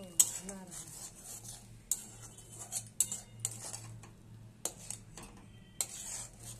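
Metal spoon stirring and scraping a thick roasting onion masala in a steel pan, with irregular clinks against the pan's sides and rim.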